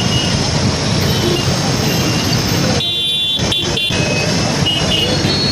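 Steady road traffic noise from idling and moving autorickshaws, cars and motorbikes. A vehicle horn honks several short times about three seconds in, and a fainter horn sounds near the end.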